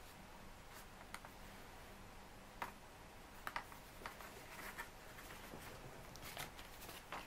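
A4 printer paper being handled and creased as a paper airplane's folds are finished: faint, scattered crinkles and rustles over a low steady hum.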